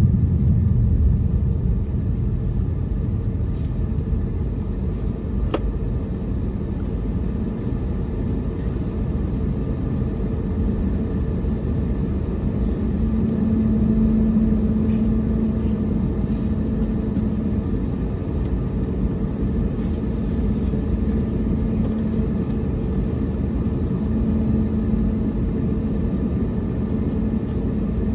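Steady low rumble of airliner cabin noise from jet engines idling while the aircraft stands on the ground, with a faint steady whine; a low drone swells in and out a few times in the second half.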